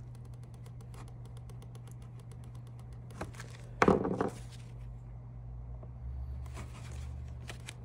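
A drill bit twisted by hand into the plastic edge of a lower fairing to start a hole gives faint, rapid scraping ticks, over a steady low hum. A short thump about four seconds in as the fairing is handled.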